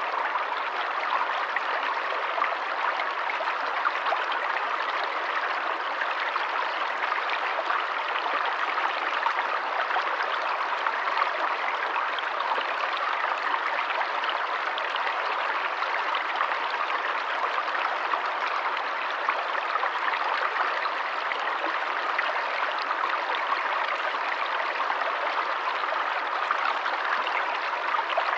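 A forest stream running steadily, an even rush of flowing water with fine splashing and no breaks.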